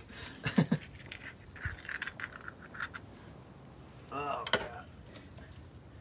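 A screwdriver clicking and scraping against the spindle nut inside a bus's rear wheel hub, in scattered short metal clinks and scrapes.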